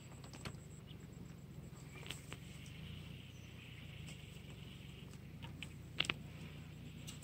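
Quiet handling sounds as hands work a fishing line and hook in dry grass: soft rustling and a few small clicks, the sharpest a quick double click about six seconds in, over a faint steady low hum.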